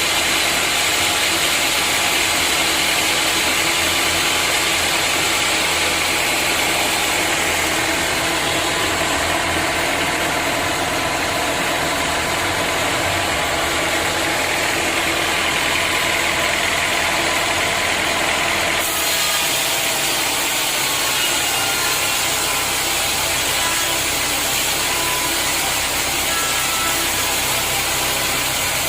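Sawmill machinery running steadily: a loud, even mechanical din with several held tones. About two-thirds of the way through the sound changes abruptly.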